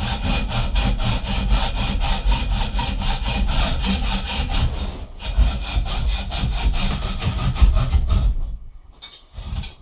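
Hacksaw cutting through an aluminium rod clamped in a vise, in quick, even back-and-forth strokes. The sawing pauses briefly about five seconds in and stops a little after eight seconds.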